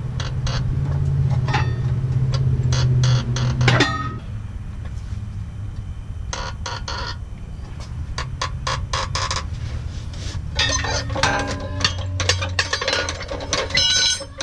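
Short runs of metallic clicking from a ratchet wrench working a transmission bolt loose, over a low steady hum. The hum weakens about four seconds in and stops near the end.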